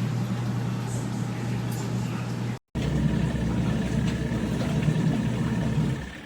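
Portable twin-tub washing machine running: a steady motor hum. It cuts out for an instant a little over two seconds in, then carries on and drops away near the end.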